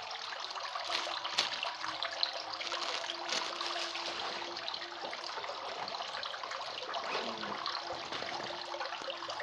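Steady running or trickling water, an even hiss with faint crackle, with a faint low hum underneath.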